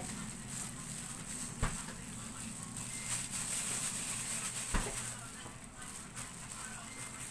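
Thin plastic food-prep gloves crinkling and sticky graham cracker crumb dough squishing as hands scoop and squeeze it, with two sharp knocks about three seconds apart, over a steady low hum.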